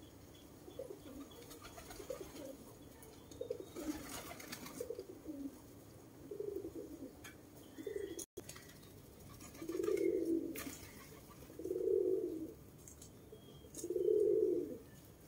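Domestic pigeons cooing. Soft, broken coos come first, then three louder coos about two seconds apart in the second half.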